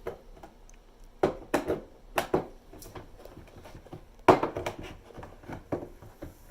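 Sharp knocks and clacks of a shelving pole being pushed and banged into a shelf's hole: several hard knocks with smaller rattles between. The pole is not going in.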